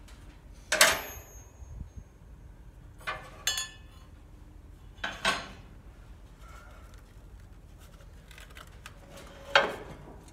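Metal air-cleaner parts clanking and rattling as a wedged air filter is worked loose from a 12.5 hp Briggs & Stratton mower engine: four separate clanks, the first, about a second in, the loudest, with a brief metallic ring.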